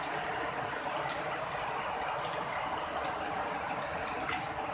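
Heavy rain pouring down steadily, an even hiss of falling water with scattered small splashes.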